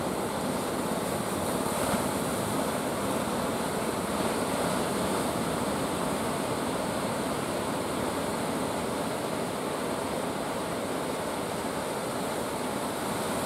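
Steady sea surf: waves breaking and washing in a continuous rushing noise with no separate strokes.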